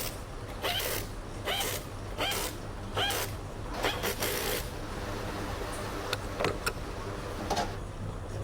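Short mechanical rasps and clicks of metal parts being worked during motorcycle engine assembly, about one every 0.7 s at first, then a few scattered sharper clicks, over a steady low hum.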